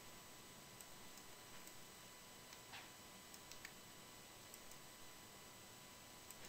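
Near silence: faint room tone with a dozen or so scattered, soft computer mouse clicks.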